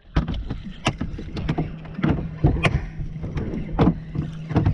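Fishing boat on the water: a motor runs with a steady low hum, under many irregular sharp slaps and knocks against the hull.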